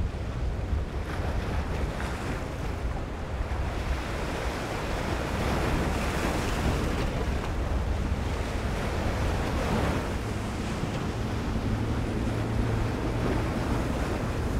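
Choppy sea waves washing and breaking, with wind buffeting the microphone. A low steady hum from the boat's twin Yamaha outboards comes in during the second half.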